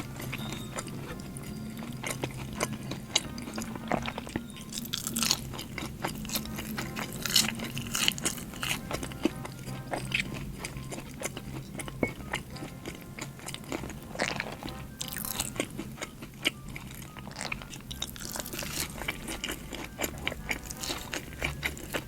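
Close-miked chewing and biting of a sambal petai and blue cheese burger: irregular wet crunches and smacks, with soft background music underneath.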